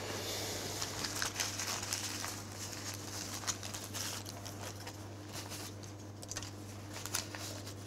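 Paper banknotes crinkling and rustling against a jacket as they are handled and pocketed, in scattered small clicks, over a steady low hum.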